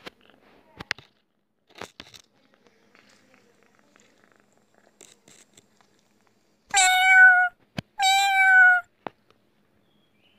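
Cat meowing twice, two loud meows just under a second each, about a second apart, both sliding slightly down in pitch at the end. A few soft clicks come before them.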